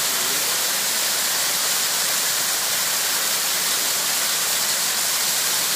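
Small waterfall cascading down a rock face: a steady, even rush of falling water.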